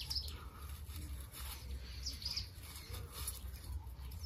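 Birds chirping in short scattered calls over a low steady rumble.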